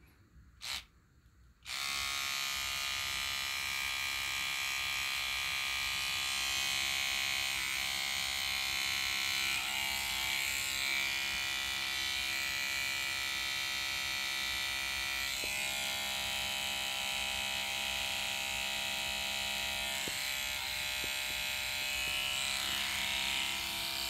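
Electric toothbrush buzzing steadily, its back held against tomato and other flowers to vibrate them so they drop their pollen. It gives a short blip about a second in, then switches on and runs without a break.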